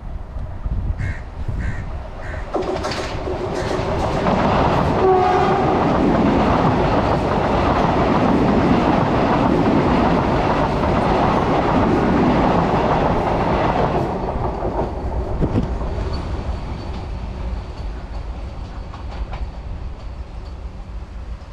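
Vande Bharat Express electric train set sounding its horn as it nears, then rushing past close by at speed. The loud passing noise drops off sharply about two-thirds of the way through, leaving a fainter steady rumble.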